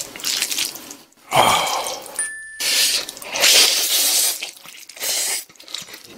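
Hand-pulled jjajangmyeon noodles in black bean sauce being slurped up in four long, wet slurps, close to the microphone.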